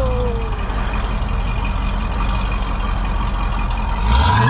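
Dodge Durango SUV engine idling steadily, heard close at the exhaust tip, then briefly revving up about four seconds in.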